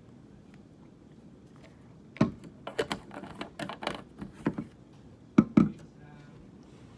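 Typing on a computer keyboard: a run of key clicks starting about two seconds in, then two louder clacks near the end.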